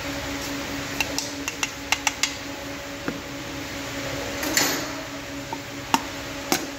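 Metal tools and engine parts clinking as they are handled: a quick run of sharp clicks, a short scrape about halfway, and two more clinks near the end, over a steady hum.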